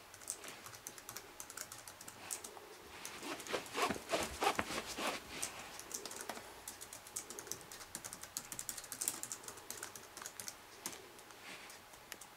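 Light crackling and rustling of a fabric baby play gym and blanket being handled: an irregular run of small quick clicks that grows busiest about four seconds in, then thins out.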